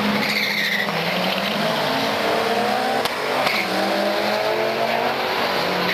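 A yellow Ford Mustang GT's V8 and a Mitsubishi Lancer Evolution launching off a drag-strip start line and accelerating hard side by side. The engine pitch climbs, then drops at gear changes about three seconds in.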